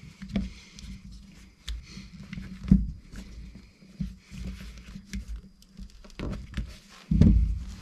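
Light clicks, taps and scrapes of a folding Allen key set turning a through screw into a snowmobile power valve housing and block, with the parts handled on the workbench. A sharper tick comes about a third of the way in, and a heavier thump near the end.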